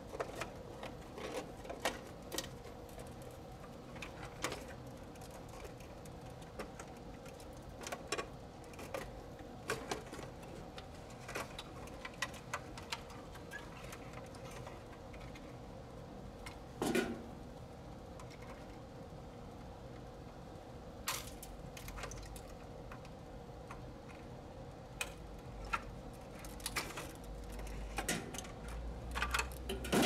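Scattered small clicks and light knocks from hands working a large-capacitor circuit board loose from an air conditioner's metal control box. There is a louder knock about 17 seconds in and a quick run of clatter near the end as the board comes out. A faint steady hum runs underneath.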